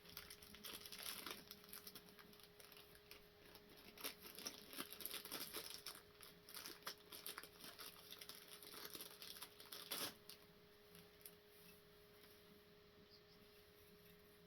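Faint rustling and clicking of packaging and plastic parts being handled, with a sharper click about ten seconds in; after that, near silence with a faint steady hum.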